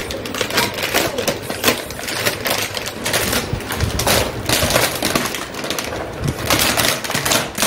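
Clear plastic wrapping crinkling and crackling as it is pulled and torn off a toy's card packaging, a dense uneven run of sharp crackles.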